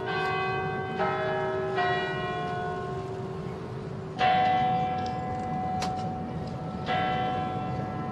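Large tower bells tolling: five strokes at uneven intervals from at least two bells of different pitch, each note ringing on and overlapping the next. The loudest stroke comes about four seconds in.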